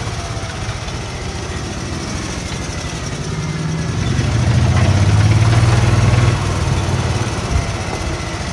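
Small engine of a golf cart running as the cart drives along, a steady low hum that grows louder for a couple of seconds about four seconds in.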